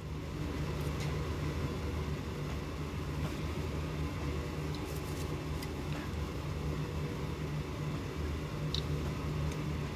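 A steady low mechanical hum, like a fan or air conditioner, with a few faint ticks.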